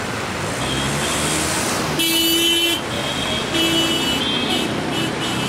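Two horn blasts: a loud one lasting under a second about two seconds in, then a shorter one about a second later, with short high-pitched toots around them, over a steady rumble of traffic and engines.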